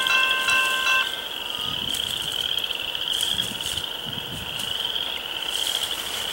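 A bell ringing in even strokes from the approaching freight train stops about a second in. A steady, high-pitched squeal, slightly wavering and rising a little, continues throughout, typical of wheel flanges grinding on the curve.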